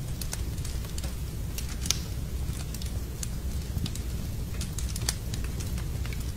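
Fire burning in a fireplace, crackling with irregular sharp pops a few times a second over a steady low rumble of the flames.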